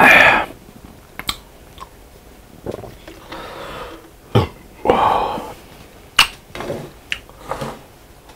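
A man gives a loud burp, brought up by a gulp of fizzy cola, followed by a few quieter throat sounds and small clicks.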